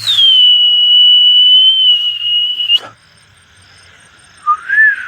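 A person whistling: one long, loud, steady high whistle that dips slightly at the start and stops sharply after nearly three seconds, then near the end a lower, wavering whistle begins.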